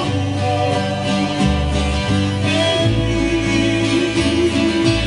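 Live Hawaiian string-band music: ukulele and acoustic guitar strumming over a bass line, with a man singing.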